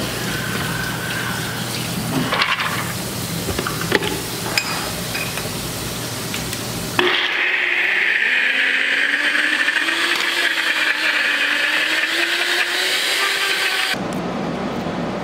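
Bullet-style personal blender grinding peeled sprouted chickpeas into a quiche dough. A few clicks and knocks come first as the cup is handled and set on the base. About halfway through the motor starts suddenly and runs loudly with a wavering pitch, then stops abruptly near the end.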